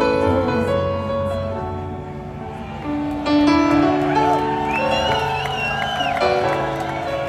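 Live band playing a slow, tender ballad accompaniment between vocal lines, led by held keyboard chords, with crowd noise beneath. A high wavering tone rises over the music about halfway through.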